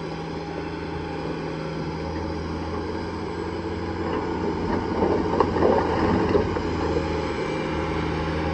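Heavy diesel machinery running steadily with a low, even drone, growing louder for a few seconds about five seconds in.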